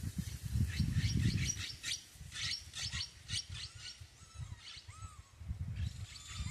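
A quick run of short, high chirping calls for about three seconds, then a few short whistles, from an animal in the bush. A low, uneven rumble sits underneath.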